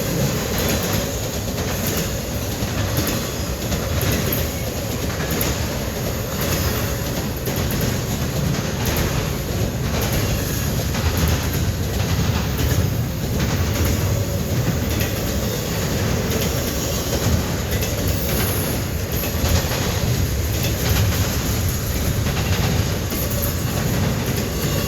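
Norfolk Southern intermodal freight train's cars rolling past: a steady low rumble with repeated clicks as the wheels pass over rail joints.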